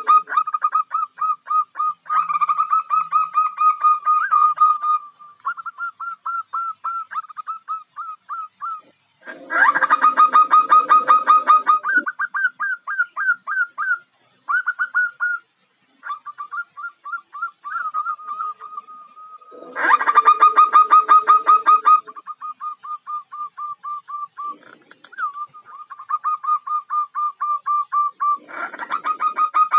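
Zebra dove (perkutut) calls, presented as a female calling to attract males: long rapid runs of short, clipped notes at one pitch, several a second. Louder, fuller bursts of calling come near the start, about a third of the way in, about two-thirds in and again at the end.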